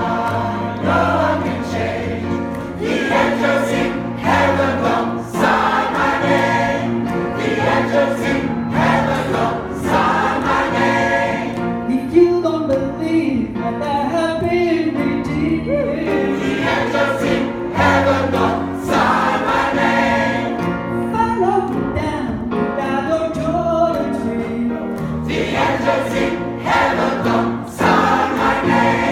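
Gospel choir singing live in concert, many voices together over instrumental accompaniment with steady held bass notes.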